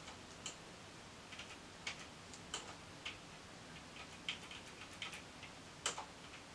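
Computer keyboard keys tapped one at a time: a dozen or more faint, irregularly spaced clicks.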